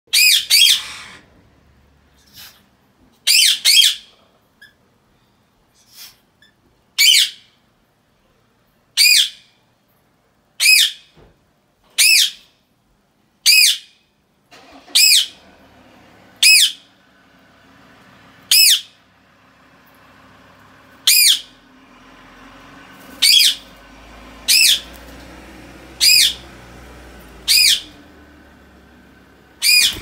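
A blue Indian ringneck parakeet giving short, loud, high-pitched calls, one every one to three seconds, some in quick pairs, about seventeen in all.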